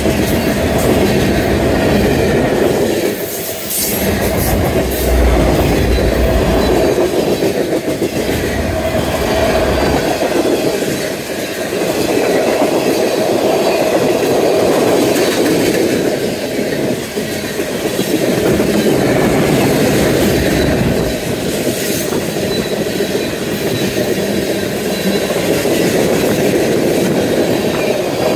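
Freight train of tank cars rolling past close by: steady steel-wheel-on-rail noise with the clickety-clack of wheels over rail joints.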